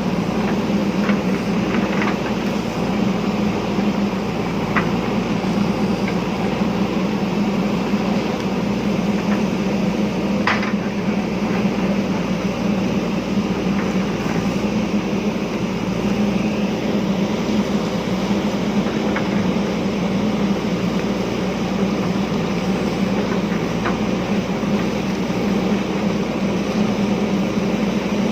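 JCB backhoe loader's diesel engine running steadily at an even speed, with a few short sharp knocks in the first few seconds and one more about ten seconds in.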